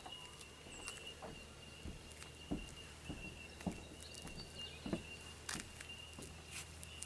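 Faint outdoor ambience: a thin, steady high tone with a few scattered soft taps, the loudest about two and a half, three and a half and five seconds in.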